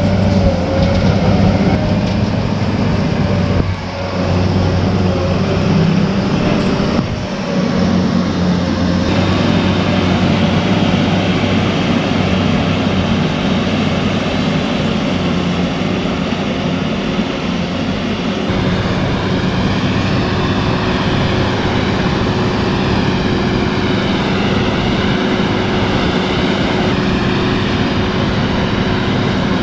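Heavy machine's diesel engine running steadily under load. The sound changes abruptly a few times, about 4, 7 and 18 seconds in.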